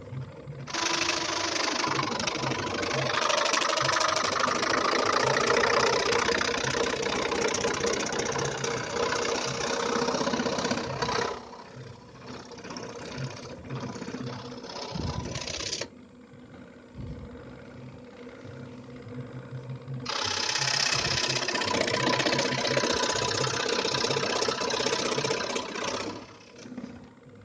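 Scroll saw running and test-cutting a workpiece with a blade held in a modified blade clamp. Two long stretches of loud cutting noise, from about a second in to about eleven seconds and again from about twenty to twenty-six seconds, with the saw's motor pulsing more quietly in between.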